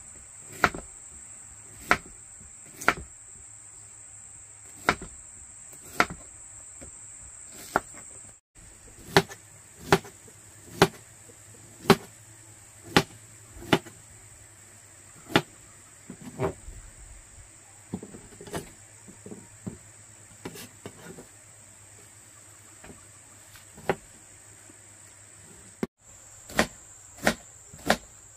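Kitchen knife chopping through fresh bamboo shoots onto a cutting board: sharp knocks roughly once a second, with lighter, quicker cuts in the middle stretch. A steady high-pitched insect buzz runs behind.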